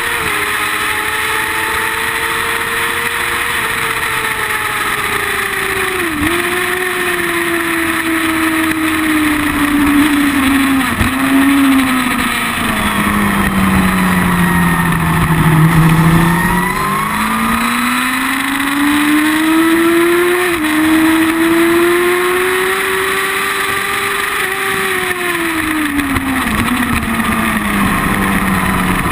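Sport motorcycle engine heard close to its exhaust while riding on track: the engine note falls slowly as the bike slows, then climbs again as it accelerates, with brief breaks at gear changes, over steady wind and road noise.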